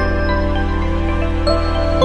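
Background music with long held chords, a few new notes entering about a second and a half in.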